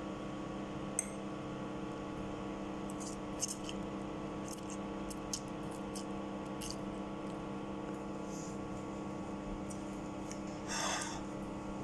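Eating sounds: a metal fork clicking against a plate while twirling and eating instant pancit canton noodles, with a few separate clicks and a brief louder noise near the end. A steady electrical hum runs underneath.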